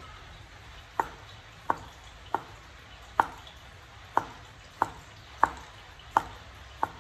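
Cleaver chopping lengthwise through a firm peeled white vegetable onto a wooden cutting board: nine sharp knocks, starting about a second in and coming about once every two-thirds of a second.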